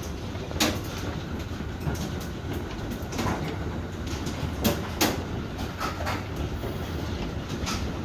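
Hail coming down: a steady rush with irregular sharp hits of hailstones striking a hard surface, a few of them louder, about half a second in and twice around five seconds in.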